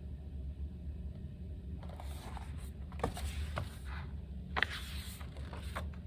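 Paper rustling and scraping as a picture book's page is handled and turned, in short scuffs and a few small taps, over a steady low hum.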